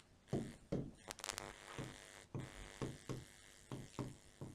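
Faint pen strokes and taps on a whiteboard as a word is written, a short soft stroke every half second or so, with a quick run of clicks about a second in.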